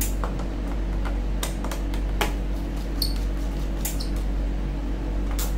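Scattered small clicks and taps of a laptop's small screws and case being handled and set down, about seven in all, over a steady low hum.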